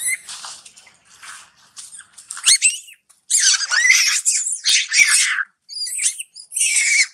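Young long-tailed macaque screaming in repeated high-pitched bouts, with a rising squeal and a long loud stretch in the middle, as a bigger macaque handles it roughly: distress cries of a hurt young monkey.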